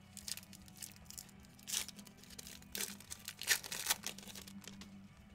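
Plastic wrapper of a trading-card pack crinkling and tearing as it is ripped open and handled, in short scratchy bursts; the loudest come a little before two seconds in and around three and a half seconds in.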